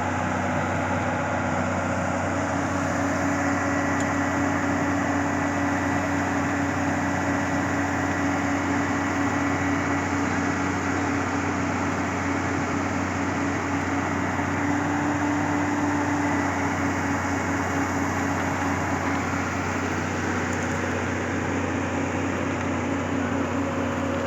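Hitachi excavator's diesel engine running steadily, a constant drone that holds the same speed throughout.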